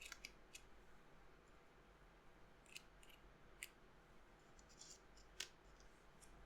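Near silence broken by a few faint, sharp clicks, the loudest about five seconds in: plastic keycaps being handled and tapped.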